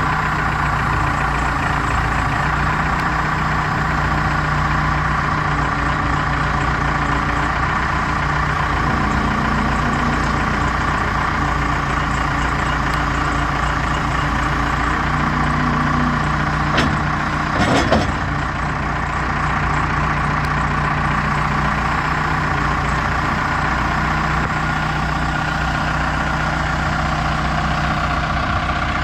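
Case 580L Series II backhoe's diesel engine running steadily. A few sharp knocks or clanks come just past the middle.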